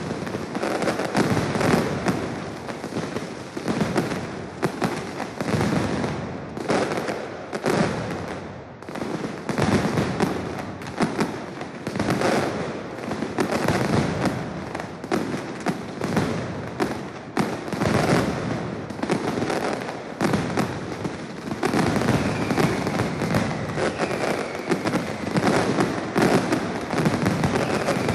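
A mascletà: ground firecrackers (masclets) and bangers going off in a dense, unbroken barrage of rapid bangs. The volley swells and eases every few seconds.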